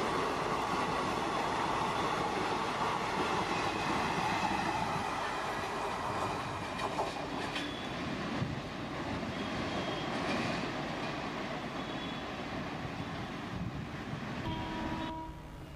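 Passenger express train running through a station at speed: a steady rush of coach wheels on the rails with a few clicks over rail joints. It fades slowly as the last coach draws away.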